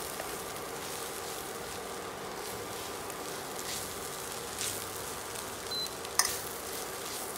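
Shredded chicken and onion stir-frying in a pan, with faint sizzling over a steady faint hum. A wooden spatula scrapes and taps the pan now and then; the sharpest tap comes a little after six seconds in.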